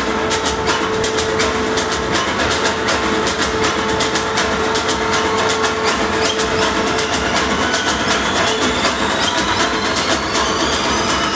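Opening of a recorded dance track over a PA system: a fast, even clicking rhythm under a steady held tone, with a rising whine building near the end, like a train effect leading into the music.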